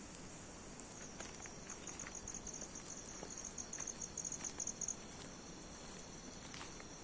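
Crickets chirping steadily, with one close cricket trilling in a fast run of pulses, about five a second, from about a second in until about five seconds in. Faint scattered footsteps underneath.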